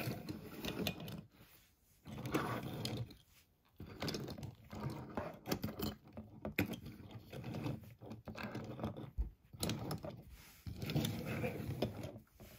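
Rapid rattling and clicking of diecast toy cars being handled, in four bursts with short pauses between.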